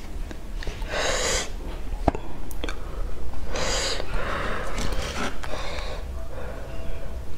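A person's breath blown out twice, close to a clip-on microphone: once about a second in and again at about three and a half seconds, with a sharp click between them.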